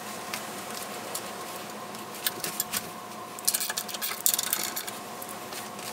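Light metallic clicks and rattles of steel nuts and bolts being turned by hand on a home-built power hammer's ram guide, busiest about three and a half to four and a half seconds in. A faint steady high tone sounds underneath.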